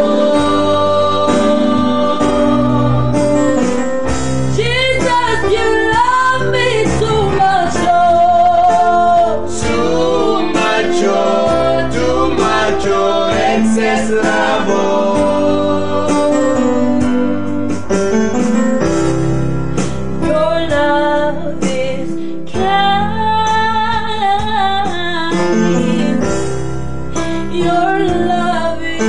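Small group of women singing a slow gospel worship song together, accompanied by an electronic keyboard holding long, low sustained notes.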